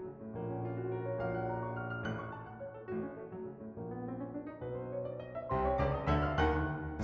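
Background piano music; a rising run of notes about four seconds in, growing fuller and louder toward the end.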